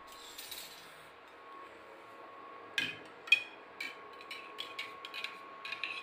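A few seconds of faint hiss, then, from about three seconds in, a run of sharp metallic clinks and taps as a steel tumbler is handled among steel utensils on a counter.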